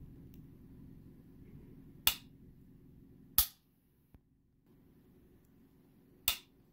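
Geissele SD-E trigger dry-fired in an AR-15 lower receiver: three sharp metallic clicks of the hammer falling, the second about a second and a half after the first and the third some three seconds later, with a faint click in between.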